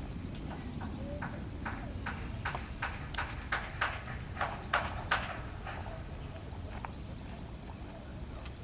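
A run of sharp clicks or knocks, about two to three a second, loudest in the middle, over a steady low rumble.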